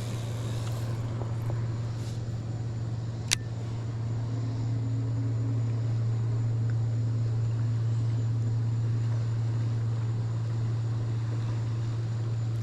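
Steady low hum of a boat motor, with one sharp click a little over three seconds in.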